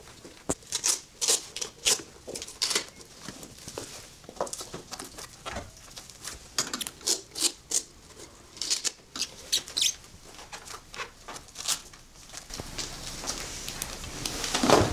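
Irregular rustles and small clicks of hands putting on and fastening a pair of new brown leather shoes, the laces and straps being pulled and the leather handled.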